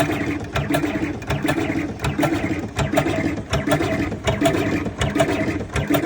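Electric tobacco filling machine running, filling cigarette tubes in a steady repeating cycle a little under twice a second: a motor hum with clicks and clacks of the mechanism on each stroke.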